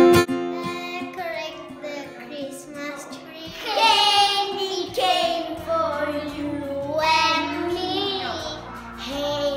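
Two young boys singing a children's song together, their voices rising and falling in pitch, without instruments.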